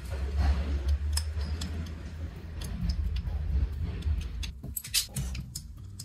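Screwdriver working Torx screws out of a rear wiper motor's metal gearbox cover: scattered small metallic clicks and ticks over a steady low rumble.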